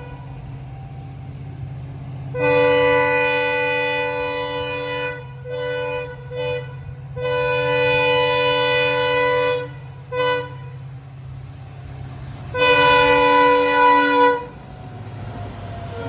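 WDP4D diesel-electric locomotive sounding its horn as it approaches: a long blast, two short toots, a long blast, a short toot and a final long blast. Under the horn runs the steady low rumble of its EMD 16-cylinder two-stroke diesel, which grows louder near the end as the locomotive draws close.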